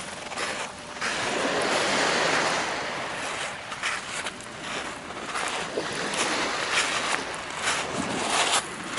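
Sea surf washing on the shore, with wind buffeting the microphone. Footsteps crunch on sand through the middle and near the end.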